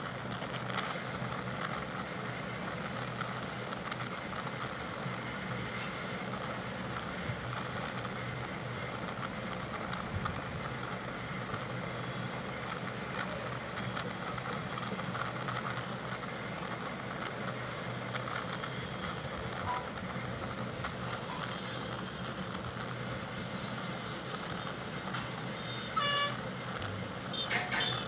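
Bus running along a highway, heard from inside the cab: a steady drone of engine and road noise. A vehicle horn honks briefly twice near the end.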